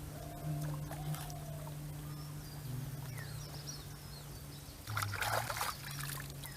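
Water splashing and pouring, with one louder splash lasting under a second about five seconds in. Birds chirp faintly in the middle, over a steady low hum.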